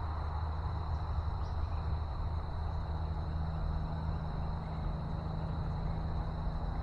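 Steady road noise from nearby highway traffic: a constant low rumble and hiss, with a faint steady high whine over it.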